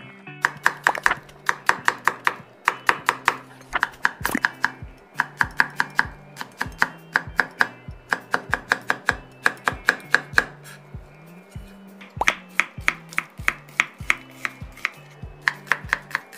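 A kitchen knife chopping on a wooden cutting board, slicing chili peppers and onion. The strokes come in quick runs of about five a second, with short pauses between runs.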